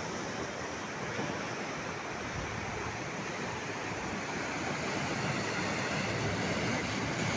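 Sea surf breaking and washing over rocks along the shore: a steady, continuous rush of water that grows slightly louder near the end.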